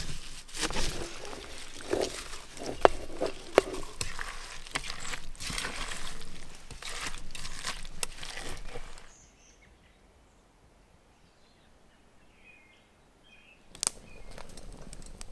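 A hand tossing spinach leaves and chopped tomatoes in a stainless steel pot: wet rustling and squishing with sharp clicks, for about nine seconds. Then a near-quiet stretch with a few faint bird chirps, and near the end a wood campfire crackling.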